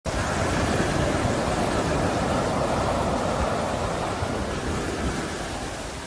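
Ocean surf: waves breaking and washing in, a steady rush of white water that slowly eases off toward the end.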